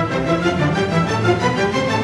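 Background music: an orchestral piece with bowed strings, many notes sounding together and changing every fraction of a second.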